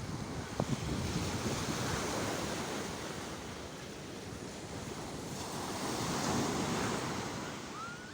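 Sea waves breaking and washing in, the surf swelling twice: about a second in, and again around six seconds.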